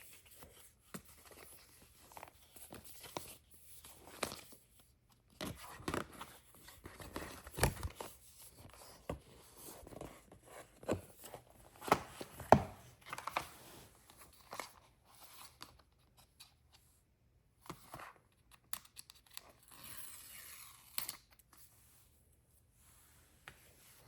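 Product packaging being torn open and handled: irregular tearing and rustling with light clicks and knocks, busiest around the middle.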